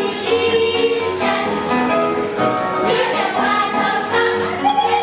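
A group of girls and women singing a song together as a choir, the voices holding notes and moving from one to the next.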